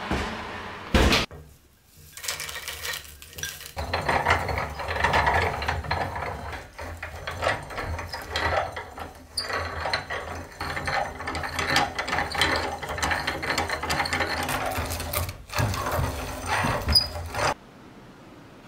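Restored cast-iron hand-cranked grain mill grinding roasted almonds as its crank is turned, a dense irregular mechanical grinding that stops abruptly near the end. A single sharp knock about a second in.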